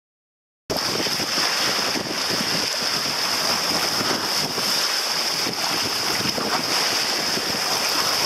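Sea water rushing and splashing along the hull of a sailboat under way, mixed with wind buffeting the microphone. It starts suddenly just under a second in and then runs on steadily.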